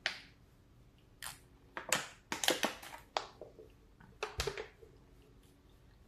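Thin disposable plastic water bottle crinkling and crackling in the hand in a quick series of sharp crackles, densest about two to three seconds in, with a soft thump at about four and a half seconds.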